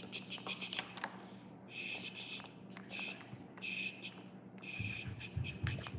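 Plastic Play-Doh tools scraping and clicking against dough and the tabletop, in short scratchy strokes roughly once a second.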